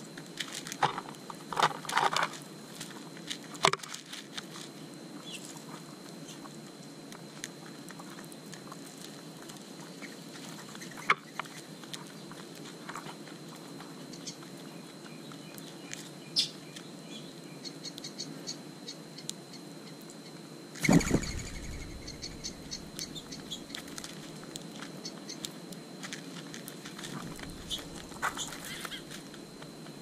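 Mourning doves pecking seed from a plastic saucer: scattered light clicks and taps. There is a brief louder rustling burst about two-thirds of the way through.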